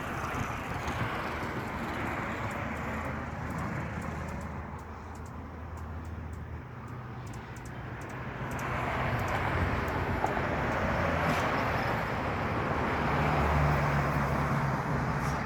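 Faint, sharp high clicks from hummingbirds over a steady rushing background noise like distant traffic, which grows louder about nine seconds in.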